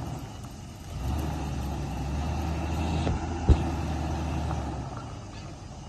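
Off-road SUV engine running under load as the vehicle reverses. The engine picks up about a second in and eases off near the end. A single sharp knock comes about halfway through.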